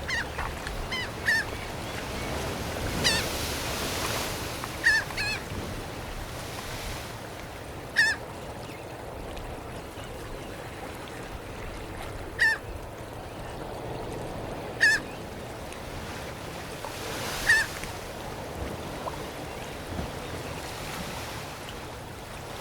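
Seagulls giving short, sharp cries, one or two at a time every few seconds, over a steady wash of surf.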